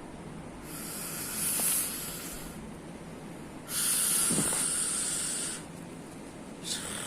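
Breathy hissing noise in long bursts: one swelling over about two seconds, a louder one of about two seconds starting just past the middle, and another beginning near the end.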